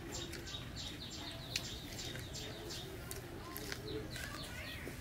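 Birds chirping rapidly and repeatedly in short high calls, with a single small click about a second and a half in.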